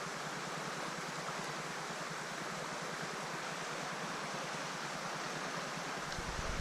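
Steady rushing of a mountain stream's flowing water. A low rumble joins it near the end.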